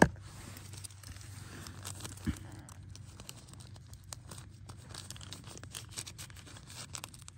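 A sharp click, then faint scattered crinkling and rustling of small things being handled by hand, as the geocache and its paper log are packed up, over a low steady hum.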